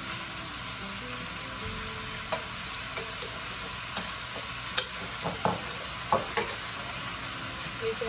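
Metal tongs clinking against a stainless steel skillet and a glass bowl as marinated chicken drumsticks are moved into the pan: a string of sharp clinks starting about two seconds in, the loudest near five seconds, over a steady hiss.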